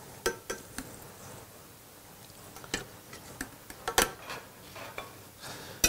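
Paper towel crinkling and crisp fried chips rustling and clicking as a hand arranges them in a bowl: scattered light clicks, the sharpest about four seconds in and again near the end.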